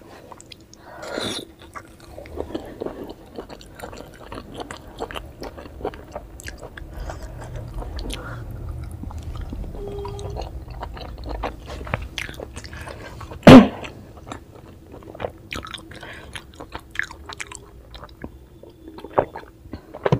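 Close-miked chewing of steamed veg momos (dumplings), with many small wet mouth clicks and a low rumbling stretch in the middle. One sharp, very loud click comes about two-thirds of the way through.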